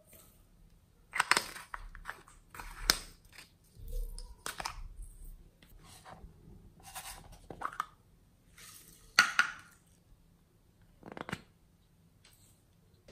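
Small plastic containers and lids being opened and handled: irregular clicks, scrapes and rustles, the sharpest about a second in, at three seconds and near nine seconds.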